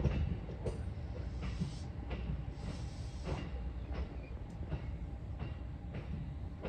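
Train running on the rails: a steady rumble with the wheels clacking over rail joints about every half second.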